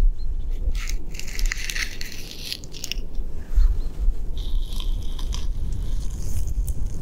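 Knit-gloved fingers scratching and rubbing rough tree bark right up against a microphone: dry, crackly scrapes, busiest in the first few seconds.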